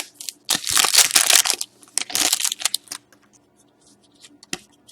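Foil wrapper of a hockey card pack being torn open and crinkled, in two loud rustling bursts over the first two and a half seconds, then only faint scattered clicks.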